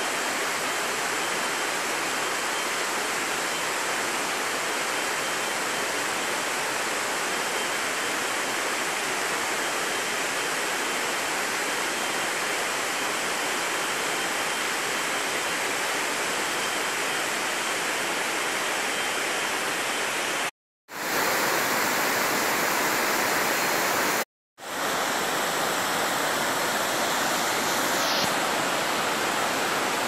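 Steady rush of falling and running water from a jungle waterfall and stream. It cuts out completely twice for a moment, about two-thirds of the way through.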